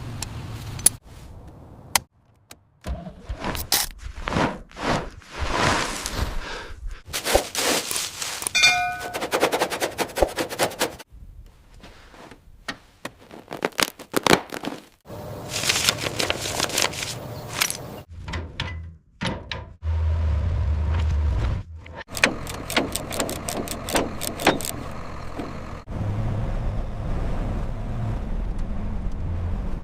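A string of short workshop sounds cut one after another: metal clinks, knocks and scrapes, a brief ring about nine seconds in, and stretches of low steady hum in the second half.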